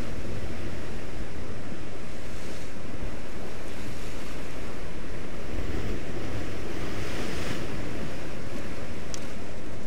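Rough ocean surf surging and breaking over a rocky shore, a steady heavy wash of foaming water, with wind rumbling on the microphone.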